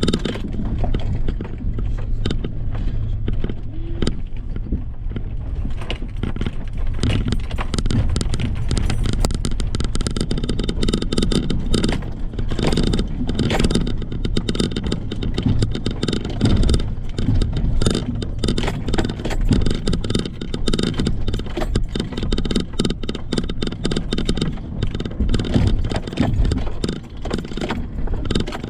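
Off-road truck driving over rough ground: a steady low engine drone under constant irregular knocks, rattles and scrapes.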